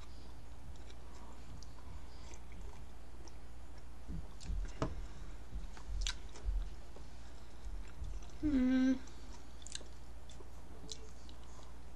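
Close-miked chewing of a fish taco, with small wet mouth clicks scattered through. About eight and a half seconds in there is a short hummed vocal sound, under a second long and the loudest thing heard.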